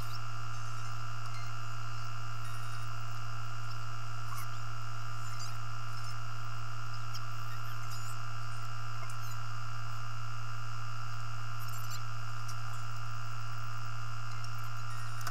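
Loader engine idling, heard from inside the cab as a steady, unchanging low hum with a faint high-pitched whine over it.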